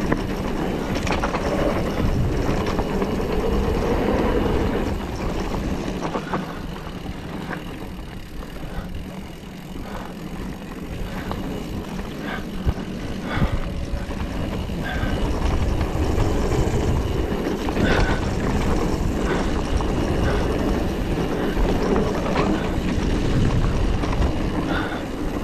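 Mountain bike descending a loose dirt and gravel trail: heavy wind rush on the microphone over tyres rolling on gravel, with frequent sharp rattles and clacks from the bike over bumps. The noise eases for a few seconds about a third of the way in, then builds again.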